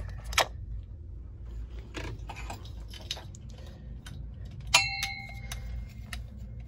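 Scattered clicks and knocks of metal hardware being handled while leads are connected to the battery terminals. About five seconds in, one sharp metallic clang rings briefly. A steady low rumble runs underneath.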